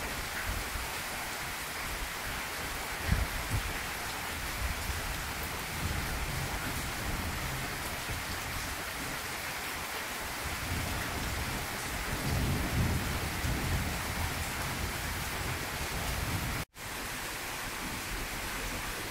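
Heavy rain pouring steadily onto a garden and ground, a dense even hiss, with low rumbles swelling now and then. The sound drops out for an instant about 17 seconds in, then the rain resumes.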